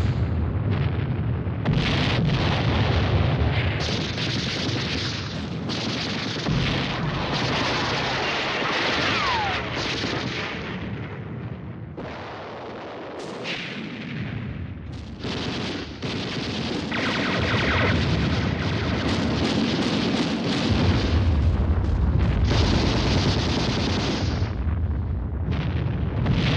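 Battle sound effects: a dense run of explosions and gunfire over a deep rumble, with a short falling whistle about a third of the way in.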